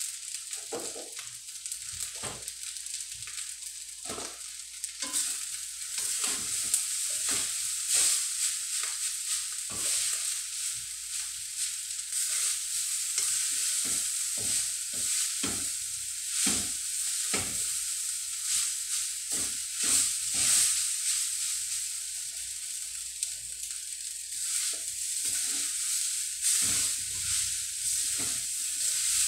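Fried rice sizzling in a stainless steel wok on a gas burner while a spatula stirs and scrapes it, with irregular clinks and knocks of the spatula against the pan. The sizzle gets louder a few seconds in.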